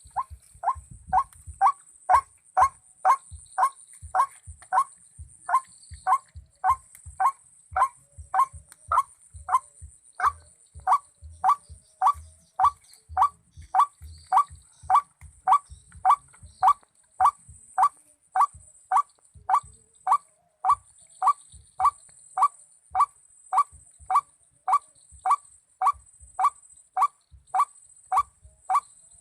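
White-breasted waterhen (ruak-ruak) call: one short note repeated over and over, about twice a second, at a steady pace.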